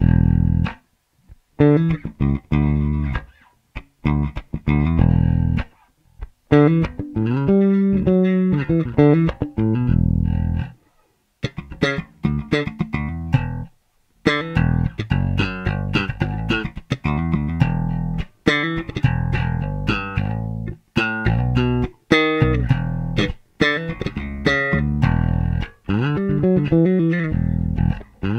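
Fender Jazz Bass fitted with a Hipshot Kickass high-mass bridge, played fingerstyle: phrases of plucked notes broken by several short pauses. The players credit the new bridge with a tighter sound and longer sustain.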